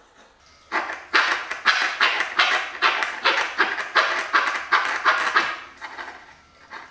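Coping saw cutting thin pine kumiko strips with quick back-and-forth strokes, about three a second. The strokes start about a second in, stop after about five seconds, and are followed by a couple of single strokes.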